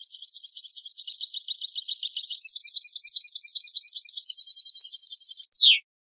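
European goldfinch singing: a fast run of repeated high twittering notes that turns into a louder, quicker trill about four seconds in and ends on a single falling note.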